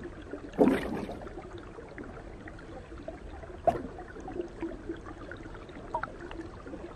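Shallow creek water trickling and gurgling, with a short splash about a second in and a sharp click a little after the middle.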